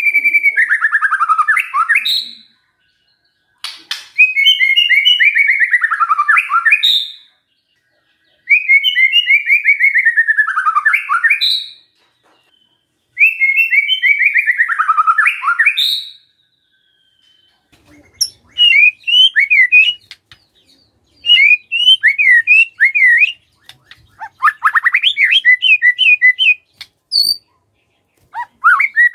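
White-rumped shama singing: the same phrase four times, a fast falling trill ending in a high note, with short pauses between. After that it gives a run of short, quick chirping notes.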